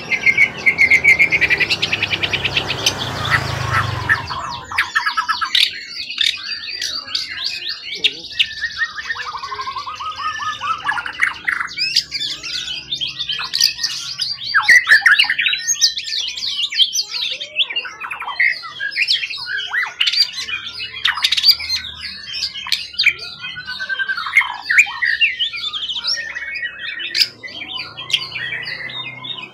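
A caged wild-caught songbird singing a long, varied song of chirps, whistles and harsh notes, opening with a fast rattling trill over the first few seconds.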